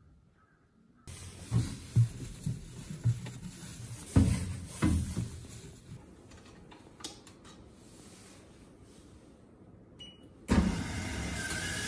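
Thumps and knocks from handling a coin-operated AQUA sneaker washer, then about ten seconds in a steady mechanical whir as the machine starts.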